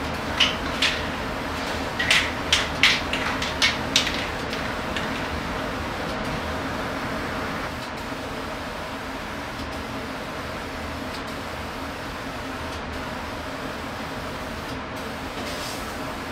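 About eight short hisses from an aerosol spray-paint can in the first four seconds, each a fraction of a second long and irregularly spaced, over a steady droning hum of background machinery.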